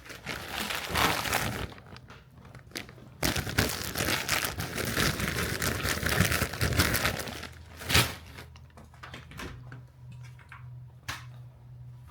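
Crinkling, rustling handling noise, like packaging or a bag being crumpled, in two long spells, with a sharp click about eight seconds in and a low steady hum after it.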